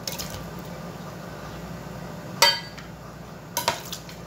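Kitchen clinks of a metal can against a clear mixing bowl as canned pineapple slices are tipped in. One sharp, ringing clink comes about halfway through, and a quick pair of clinks comes near the end.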